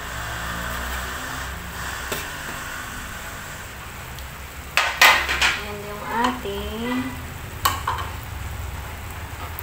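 Chicken strips and broccoli sizzling in oyster-sauce liquid in a frying pan, a steady hiss. About halfway through come a few sharp clacks, then a short bit of voice.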